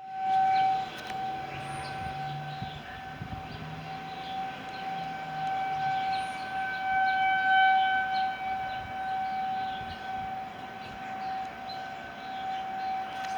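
Outdoor tornado warning siren wailing on one steady pitch, swelling and fading in loudness.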